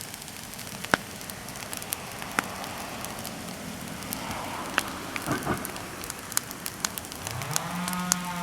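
Bonfire of freshly cut persimmon wood crackling over a steady hiss, with sharp pops scattered throughout. Near the end a long, low, pitched call begins.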